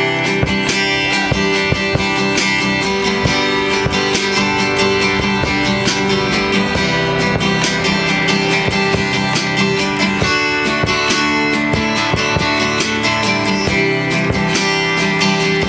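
Acoustic guitar strummed in a fast, steady rhythm, playing an instrumental passage.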